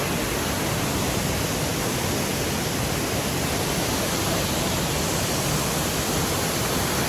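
Datanla waterfall's rushing water: a steady, unbroken roar from a heavy rainy-season flow.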